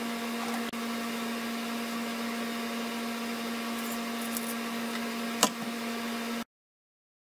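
A steady machine hum fills the room. About five seconds in there is a single sharp knock as the paper cutter's gridded cutting board is set down on a plastic tray. The hum then cuts off suddenly near the end.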